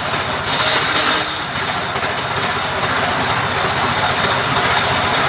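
Power saw cutting through wood, running steadily under load with a fast low rattle throughout.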